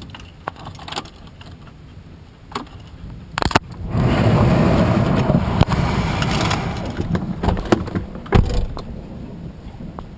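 A close thunderclap: a sharp crack about three seconds in, then a loud rumble that holds for a few seconds and slowly fades, among scattered light clicks.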